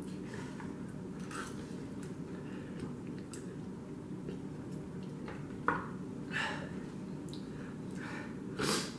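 Quiet eating sounds: a fork clicking against a plastic bowl while noodles are twirled, slurped and chewed, a few short faint clicks over a steady low hum.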